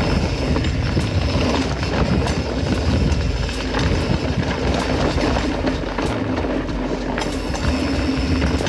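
RSD RS-291 mountain bike descending a rocky dirt trail: steady tyre and wind rumble, with sharp clicks and rattles now and then.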